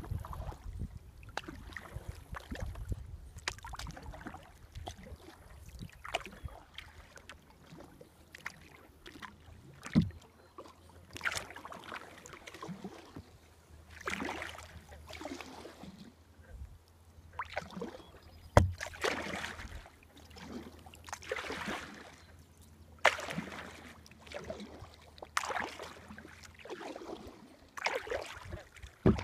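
Kayak paddling on calm water: repeated paddle strokes, each a swish and splash of water, about every second or so, with two sharp knocks, one about ten seconds in and a louder one about two-thirds of the way through.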